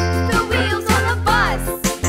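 Upbeat children's background music with a steady bass and bright electronic melody, with a quick run of sliding notes a little past the middle.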